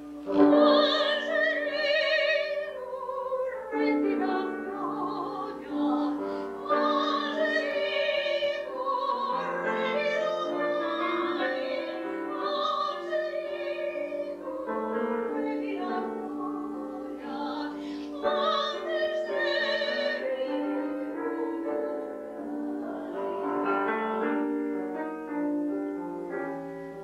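Classically trained soprano singing a Portuguese folk song in Portuguese, in the operatic style with a wide vibrato, accompanied by a grand piano. The voice comes in phrases a few seconds long with short breaths between them.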